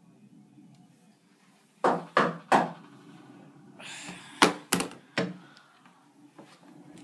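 Knocking on a door: three loud, quick knocks about two seconds in, then a brief scrape and three more sharp knocks about halfway through.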